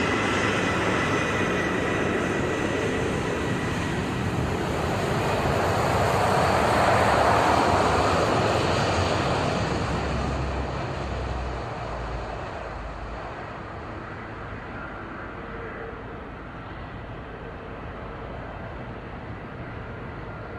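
A rushing noise that swells about seven seconds in, then fades down to a quieter steady hiss.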